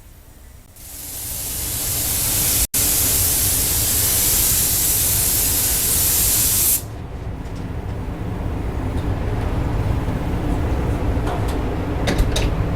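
Loud steady hiss of compressed air escaping from an air tool in a body shop. It stops suddenly about seven seconds in, leaving a low steady rumble with a few clicks near the end.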